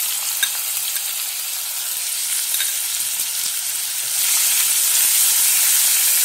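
Freshly added chopped onions sizzling in hot oil in a kadhai, stirred with a wooden spatula, with a few light taps early on. The sizzle grows louder about four seconds in.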